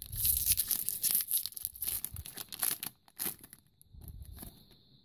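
Shiny foil wrapper of a trading-card pack being torn open by hand: crinkling and tearing for about three seconds, then quieter rustling as the cards are slid out of the pack.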